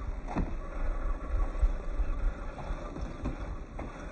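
Radio-controlled MST CFX scale crawler driving off-road: its small electric motor and gears run under a low, uneven rumble, with a few short knocks about half a second in and twice near the end.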